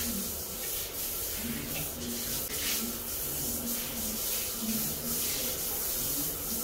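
Handheld shower head spraying water onto a Boston terrier and the tiled shower floor, a steady hiss, with short low tones coming and going underneath.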